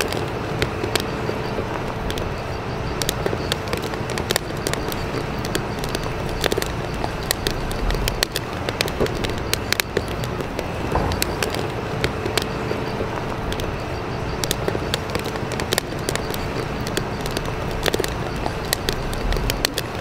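Steady rushing background noise, dotted with frequent short crackles and clicks, a faint steady hum underneath and a few low rumbles.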